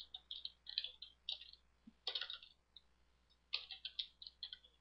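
Computer keyboard being typed on as a password is entered: faint runs of quick key clicks, a pause of about a second in the middle, then another run near the end.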